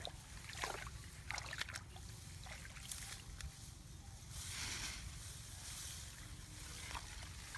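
Hands rustling through rice plants and sloshing in shallow muddy water while feeling for fish. Short scattered rustles come through, with a longer swish a little past halfway, over a steady low rumble.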